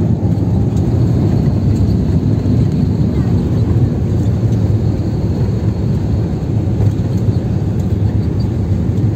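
Steady loud low rumble inside a jet airliner's cabin as it rolls along the runway, the jet engines and the rolling on the runway heard together.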